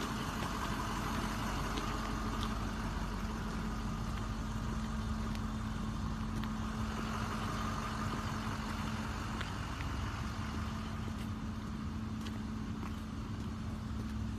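Street ambience: a steady mechanical hum with a low rumble underneath, the kind heard from running vehicle engines, and a few faint clicks scattered through it.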